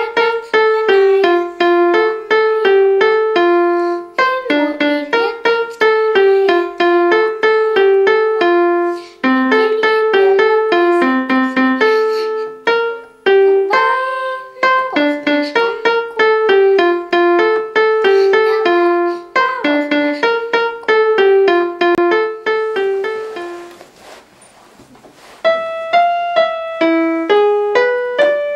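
Portable electronic keyboard played note by note: a simple melody of separate notes, a few a second, which breaks off about 23 seconds in and starts again a couple of seconds later.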